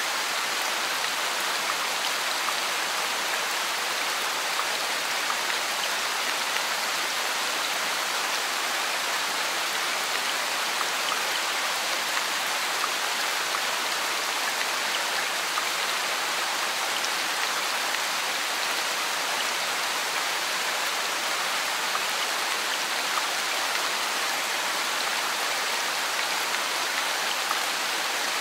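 Heavy rain falling steadily on a street and pavement, an even hiss without a break.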